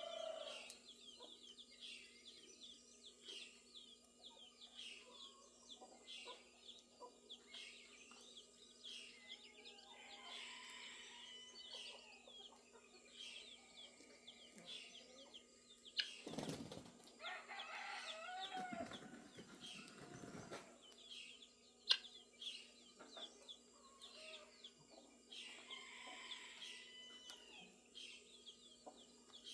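Farmyard birds at dawn: many small birds chirping throughout, with chickens clucking and a brief flutter of wings a little past halfway.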